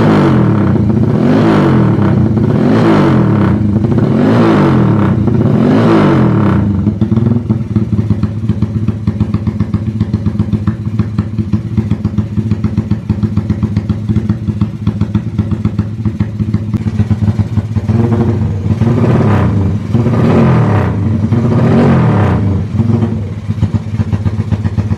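Honda Tiger's single-cylinder four-stroke engine through a loud aftermarket exhaust, blipped up and down about five times in a row, then idling with an even putter. Several more throttle blips come past the middle before it drops back to idle.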